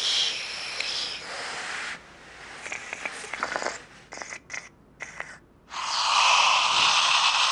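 A person snoring, then about six seconds in a sudden loud, steady hiss of steam from a steam generator iron.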